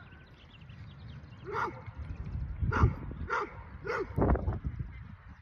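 A dog barking, several short barks in the middle of the stretch, over a low rumble of wind on the microphone.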